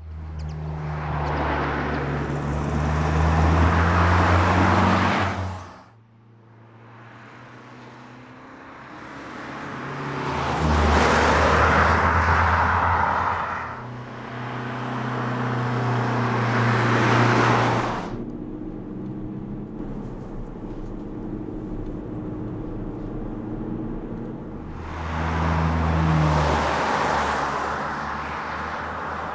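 BMW 5 Series Touring estate car driving by several times: engine running with tyre noise, each pass swelling to a peak and fading, two of them cut off suddenly. The engine note rises a couple of times as the car accelerates.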